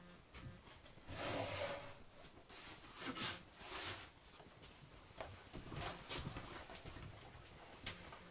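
Loose plastic sheeting rustling as it is pulled and draped over unfired clay pots, with a few light knocks against the wooden shelf.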